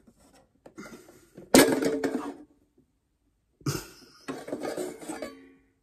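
Plastic basket drawer of a Logic LAF21 air fryer being forced out of its housing: a loud clunk and rattle about a second and a half in, then another clunk and scraping rattle near four seconds. The drawer is stiff and sticks as it is pulled.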